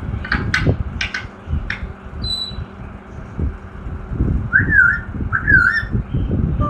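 African grey parrot making a few short clicking chirps, then a thin high whistle, then two wavering, warbling whistles near the end, over a low rumbling background noise.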